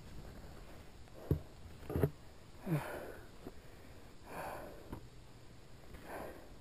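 A person breathing hard with sniffs, a short grunt falling in pitch and a few audible breaths, after two low thumps about one and two seconds in.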